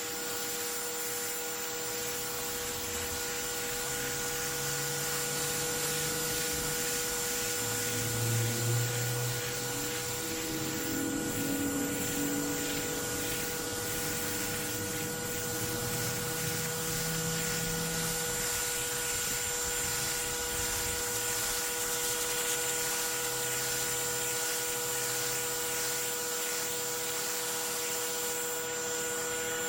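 Pressure washer blasting a dirty concrete sidewalk: a steady hiss of the water jet on the concrete over the machine's constant hum.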